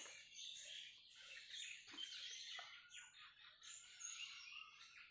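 Birds chirping faintly, many short high calls overlapping throughout, with a few soft clicks.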